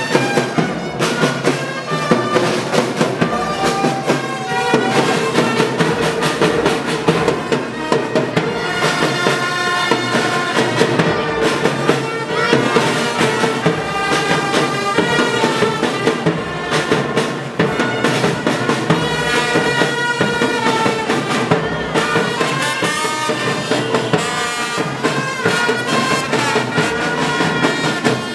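A marching brass band playing: trumpets and other brass over drums.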